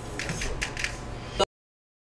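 Faint rustling and small clicks of handling noise. A sharper click comes about one and a half seconds in, and then the sound cuts off to dead digital silence at an edit.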